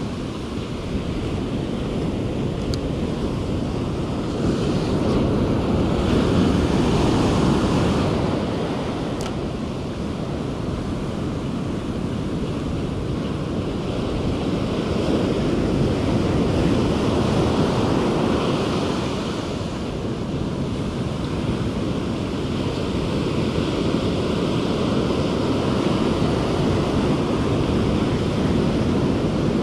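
Ocean surf breaking and washing up a sandy beach, a steady rush of water that swells louder as bigger waves come in.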